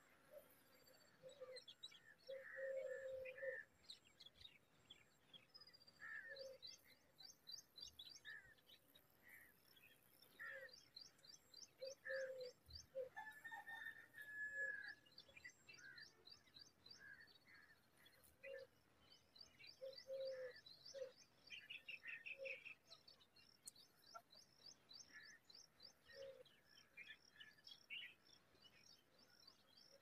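Faint wild birdsong: a small bird repeating high, rapid trills over and over, with scattered short, lower chirps and calls from other birds.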